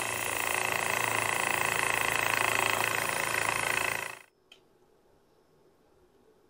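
Small electric lapidary trim saw running, its wet diamond blade grinding through a small, porous creek rock, with a steady motor hum under the cutting noise. The sound cuts off suddenly about four seconds in.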